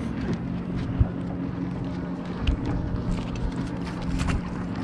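Wind buffeting the microphone over the steady low hum of a boat motor, with a few light knocks from the boat deck.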